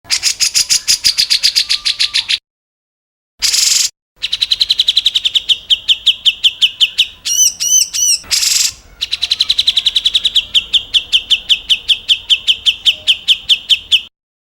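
Edited bird-song training recording of rapid 'shot' calls: trills of sharp repeated notes, about ten a second, spliced together with abrupt silent cuts between segments. Short harsh rasping bursts and a few looping whistled notes come between the longer trills.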